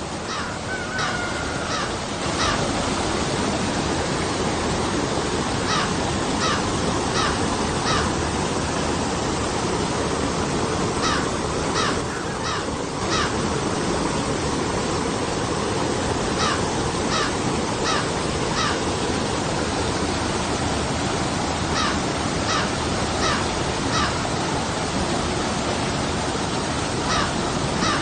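River water rushing over rocks and small falls, a steady noise, with a bird calling over it in runs of four short calls, each run coming back about every five to six seconds.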